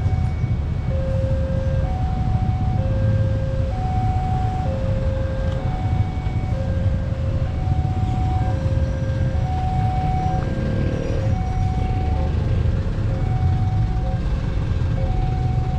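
Railway level-crossing warning alarm sounding an electronic two-tone chime, a lower and a higher tone alternating, about one pair every two seconds, the signal that a train is coming and road traffic must stop. A steady low rumble of vehicle engines runs underneath.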